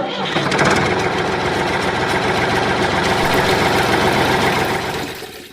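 Engine running steadily with a fast, even pulse, fading out near the end.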